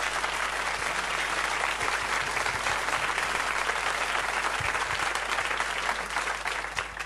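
Applause, steady clapping that dies away at the very end.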